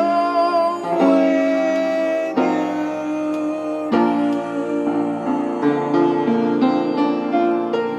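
Background song with piano and plucked strings, an instrumental stretch between sung lines.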